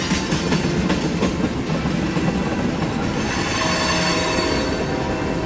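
Freight train of tank cars rolling past, its wheels clacking over the rail joints. About halfway through, a thin, steady squeal of wheels on rail joins in.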